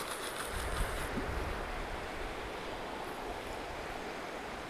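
Steady rush of river current and wind on the microphone. In the first second a faint high hiss joins it as line runs off a baitcasting reel after a cast.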